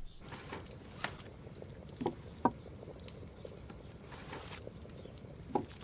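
Light handling sounds: a few soft knocks and faint rustling as a small wooden box is moved and slipped into a bag.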